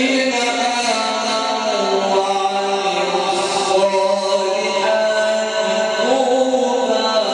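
A man reciting the Quran in melodic tajweed style, drawing out long held notes that bend slowly up and down.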